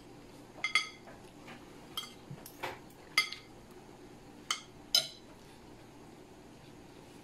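Metal spoon and fork clinking and tapping against a plate while the last of a meal is scraped up. About seven short, bright clinks come in the first five seconds, then it goes quiet.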